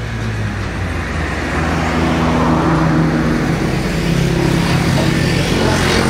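An engine or motor running steadily: a low pitched hum under a broad hiss, growing a little louder about a second and a half in.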